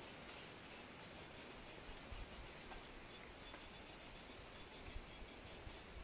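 Faint steady hiss of a shallow stream, with short high-pitched chirps about two seconds in and again near the end, and a few low dull knocks.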